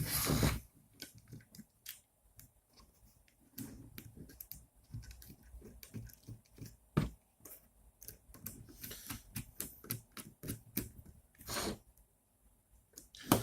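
Irregular small clicks, taps and scrapes of hands fitting parts and hardware into the acrylic frame of a 3D printer kit, with a louder brief noise about three quarters of the way through.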